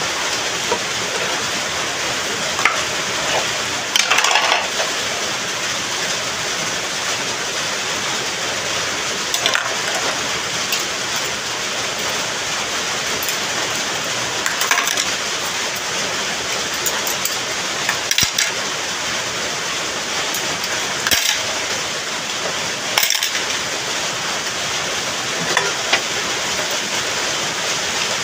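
Dishes being washed by hand in plastic basins of water: plates, enamel bowls and metal spoons clinking and splashing, with a sharp clink every few seconds, over a steady hiss of rain.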